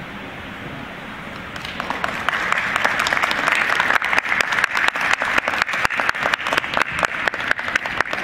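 Audience applauding, starting about a second and a half in and building, with loud single claps close by in a quick even beat through the second half.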